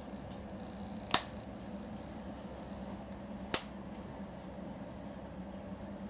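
A rubber band snapping sharply twice, about two and a half seconds apart, as a cat's paw plucks it, over a steady low hum.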